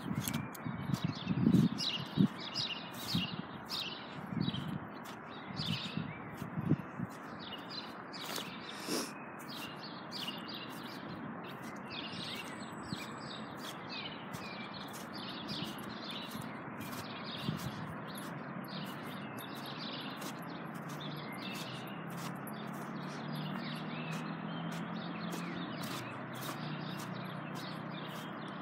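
Small birds chirping in short, quick calls, one or two a second throughout, over a steady outdoor hum. A few low thumps fall in the first several seconds, and a low drone rises in the background near the end.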